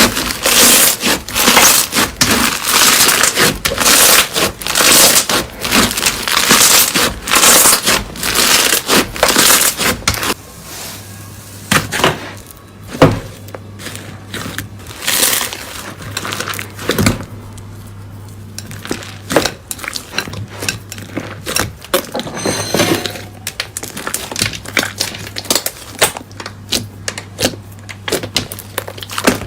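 Slime being squeezed and pressed by hand, giving dense, rapid crackling pops. About ten seconds in it turns quieter, with scattered clicks and squishes over a steady low hum.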